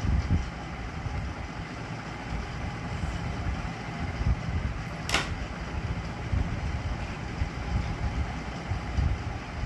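Steady low rumble of room background noise, with a single sharp click about five seconds in.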